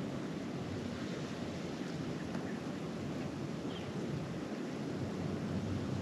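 Steady blizzard wind rushing and buffeting the microphone, a low, even noise.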